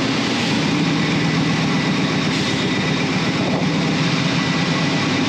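Large industrial piston air compressors driven by electric motors, running with a loud, steady drone and low hum.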